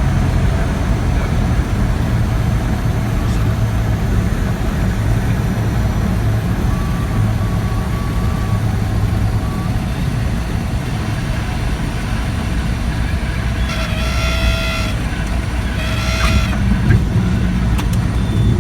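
Cessna 172 engine and propeller drone heard inside the cockpit during the landing approach, steady and low. Near the end a horn-like tone sounds twice, typical of the stall warning horn during the flare just before touchdown.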